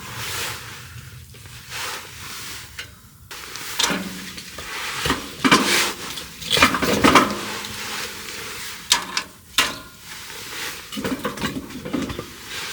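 Cookware and utensils being handled: irregular clinks, knocks and scrapes, some of them sharp and loud.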